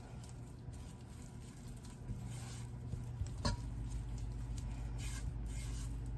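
Silicone spatula stirring and scraping a thick butter-and-flour roux around a nonstick pot, in soft swishes, as the roux cooks on the heat. A sharp knock sounds about halfway through, and a low hum gets louder after it.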